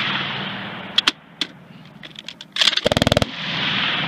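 C9 light machine gun (5.56 mm) firing a short burst of automatic fire about three seconds in, followed by a long rolling echo across the open range. Two sharp single cracks come about a second in, and the echo of an earlier burst is still dying away at the start.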